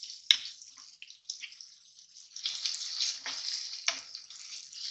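Tomato masala sizzling in a kadhai while a spatula stirs and mashes it. A sharp tap on the pan comes about a third of a second in, and several scraping strokes follow near the end.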